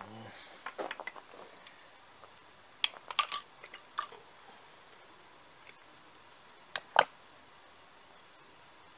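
Light clicks and taps of hand tools and small metal parts being handled at a chainsaw's exposed crankshaft and ignition plate, in small scattered clusters, with the sharpest click about seven seconds in, just after a lighter one.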